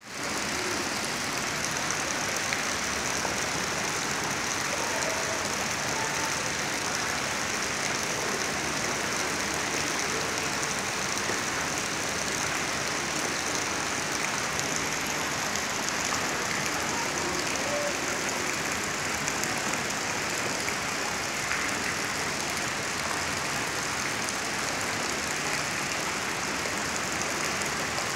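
Steady splashing of a stream of water pouring from a pipe into a pool, an even, unbroken rush.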